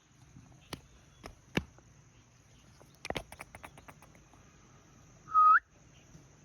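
A parrot's short, clear whistle that slides upward near the end, after scattered sharp clicks and a quick rattle of clicks about three seconds in. A faint steady high-pitched whine runs underneath.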